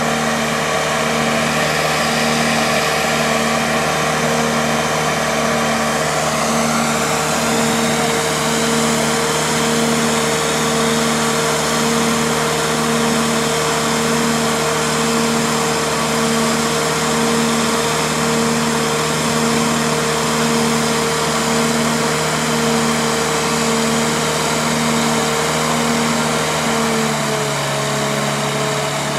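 A Finn bark blower's engine and blower run steadily under load, blowing material through the hose into a filter sock. A hum pulses about once a second. A higher note climbs about six seconds in, and the pitch drops slightly near the end.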